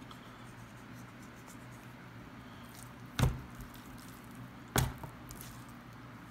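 Two dull thumps about a second and a half apart as raw Cornish game hens are flipped and set down on a wooden cutting board, over a low steady hum.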